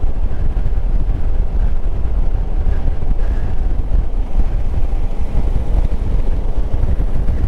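Steady low rumble of wind on the microphone of a KTM 990 SMT motorcycle riding along at road speed, with the bike's running noise underneath.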